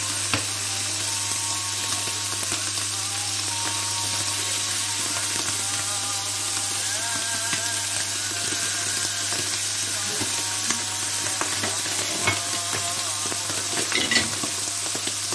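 Pieces of liver sizzling steadily on a hot, oiled electric griddle, with a few sharp taps as more pieces are laid on it.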